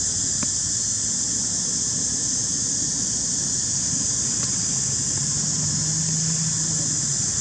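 A steady high-pitched hiss that stays even throughout, over a low background rumble. A faint low hum comes in a little past halfway and fades near the end.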